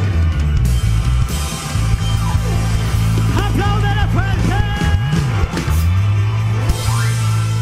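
Live band playing tropical-style praise music: a heavy, steady bass line under pitched notes that slide up and down in pitch.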